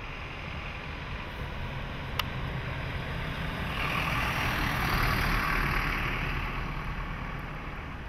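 A steady rumbling noise with a low hum, like distant traffic or machinery. It swells to its loudest about five seconds in, then eases off, with one sharp click about two seconds in.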